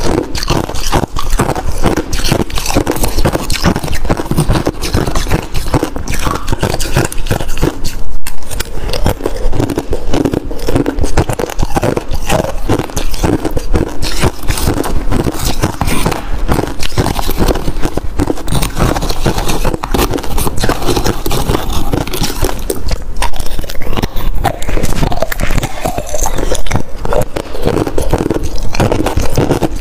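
Freezer frost crunched and chewed close to a clip-on microphone, a dense, continuous crackling crunch, with a metal spoon scraping frost up from the bowl.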